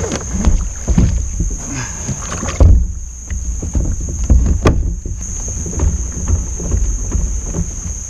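Irregular knocks and bumps on a plastic Hobie Outback kayak and its gear as it shoves off from the bank, the loudest thump about two and a half seconds in. A steady high insect drone runs behind it and drops out for a couple of seconds in the middle.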